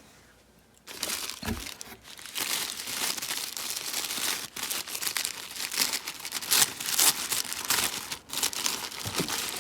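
Wrapping crinkling, rustling and tearing as a gift-wrapped package of plant cuttings is opened by hand, starting about a second in and going on in quick irregular crackles.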